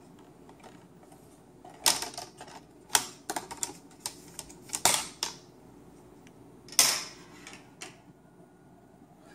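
Plastic clips of a laptop's LCD screen bezel snapping loose as the bezel is pried off: sharp clicks and cracks, one about two seconds in, a cluster around three seconds, more near five seconds and a loud one near seven seconds.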